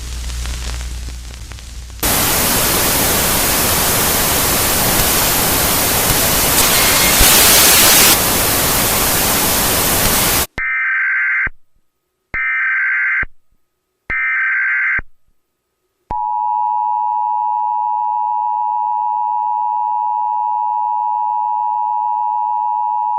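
Emergency Alert System test tones: a loud burst of white-noise static, then three short bursts of SAME header data tones, then the steady two-tone EAS attention signal.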